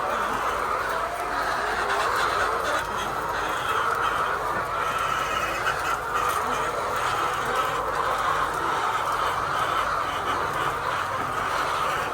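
A flock of laying hens clucking and squawking together, a steady dense din of overlapping calls.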